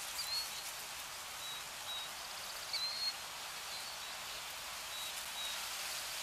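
Steady high hiss of night-time outdoor ambience, with a few short high chirps scattered through it.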